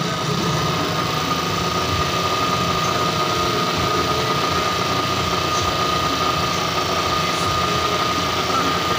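A motor running steadily, with a constant high whine over a rushing hum.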